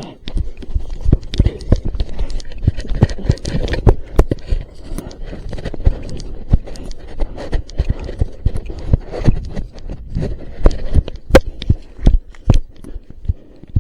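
A person running: quick, irregular footfalls with knocks and thumps of gear jostling close to the microphone.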